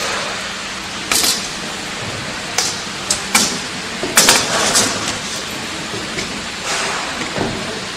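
A steel shaft and sprocket being slid and fitted into a bucket elevator's frame: a series of short metal knocks and scrapes over a steady background hiss.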